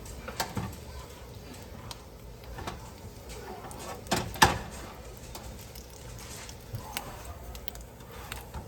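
Cooking utensils clicking and knocking against cookware while burritos are turned and worked in the pan. Two louder knocks come about four seconds in, over a low steady hum.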